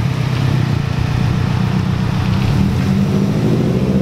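Subaru WRX STI's turbocharged 2.5-litre flat-four running at low speed, pulling away gently, through an exhaust with the resonator deleted. It makes a steady, deep exhaust rumble with no sharp revving.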